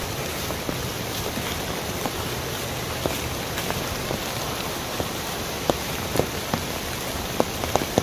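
Mountain stream cascading over rocks: a steady rush of water with frequent small splashes and drips.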